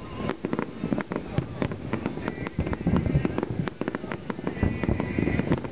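Aerial fireworks bursting: a rapid, irregular run of bangs and crackles, several a second.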